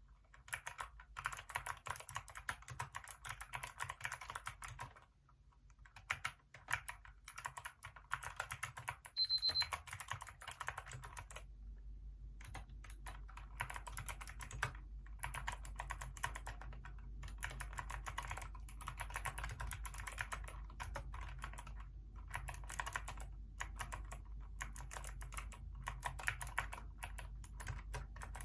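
Hacker K611 mechanical keyboard with Kailh optical switches being typed on in fast runs of keystroke clicks, broken by short pauses, the longest about five seconds in.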